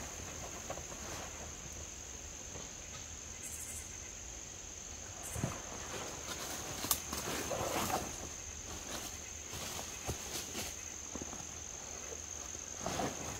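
Scattered knocks and rustles of hands working wooden poles and a canvas tarp, a few seconds apart, over a steady high-pitched whine.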